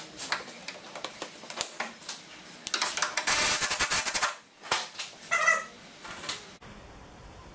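Cordless power tool running in short bursts, with a longer run of about a second midway, among clicks and knocks of tools and parts being handled.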